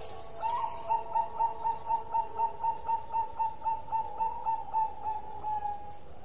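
Zebra dove (perkutut) singing a long, fast series of clear coos, about four a second, that fades out near the end.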